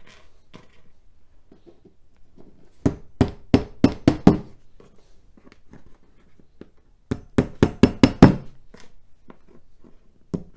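Hammer tapping wooden dowels into the holes of a shelf panel: two quick runs of about half a dozen sharp knocks each.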